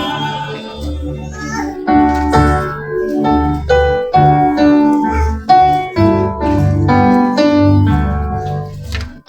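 Keyboard instrumental in a worship song: piano-like chords and melody notes played over a bass line, a new note struck about every half second.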